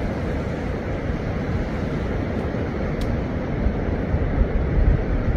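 Steady wind and sea-wave noise at a breakwater, heaviest in a low rumble, with one light click about three seconds in.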